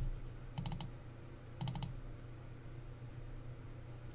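Computer keyboard typing picked up by the host's microphone: two short runs of about four quick keystrokes each, about a second apart, over a steady low hum.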